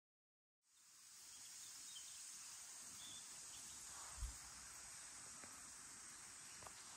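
Faint, steady high chirring of insects, fading in after a moment of total silence. A single low thump about four seconds in.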